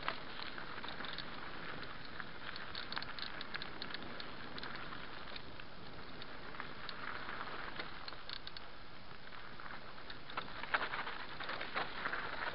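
Mountain bike rolling fast down a rocky dirt trail: tyres crackling over gravel and loose stones, with steady rattling clicks from the bike and a few louder knocks near the end as it hits rocks.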